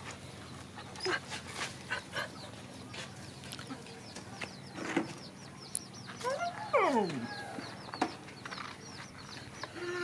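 Dogs and chickens in a farmyard. There are soft scuffs and clicks, and one short cry falling steeply in pitch about two-thirds of the way in. Through the second half comes a run of quick, high bird chirps.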